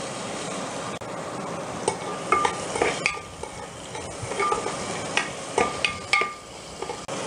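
Chopped onion sizzling in hot oil in a pressure cooker, stirred with a steel spoon. From about two seconds in, the spoon clinks and scrapes against the metal pot several times at irregular intervals.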